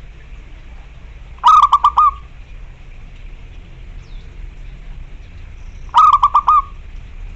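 Zebra dove (perkutut) cooing twice: each phrase is a quick run of about four short notes lasting roughly half a second, the first about a second and a half in and the second near the end.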